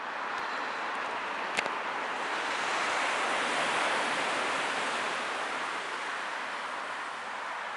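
Steady rushing of surf and coastal wind, swelling about three seconds in and easing off again, with one sharp click about a second and a half in.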